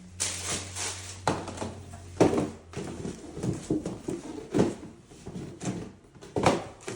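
Shoes and shoe boxes being handled during an unboxing: irregular rustling, scraping and light knocks, loudest about two seconds in and again near the end.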